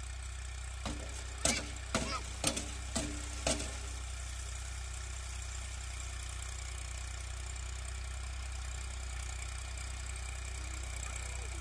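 New Holland tractor's diesel engine running steadily while it pulls a rotavator through a field. About a second in comes a quick run of sharp knocks, about two a second, for some two and a half seconds.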